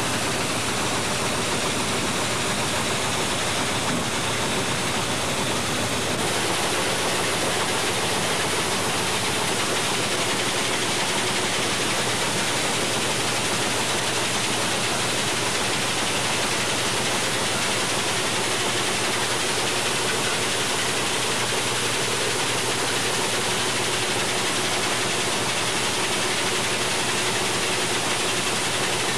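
Belt-driven grain cleaning machine running, a loud steady rushing noise that does not let up.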